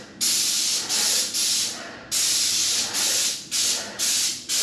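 Paint spray gun on a hose spraying eggshell wall paint in short, sharp bursts of hiss, about eight of them. Each trigger pull lasts under a second, spot touch-up spraying on a wall.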